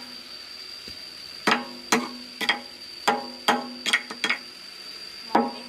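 A hammer striking metal: about nine sharp blows at uneven spacing, each with a short ringing tone.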